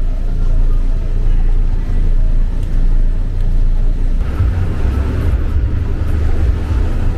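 Bus engine and road noise heard from inside a moving bus: a steady low rumble that grows louder and hissier about four seconds in.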